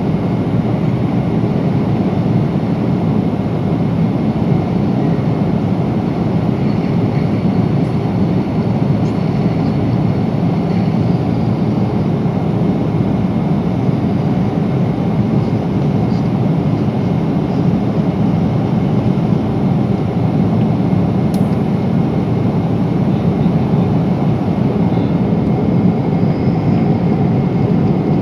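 Steady roar inside the cabin of a Boeing 777-300 airliner at cruise: engine and airflow noise.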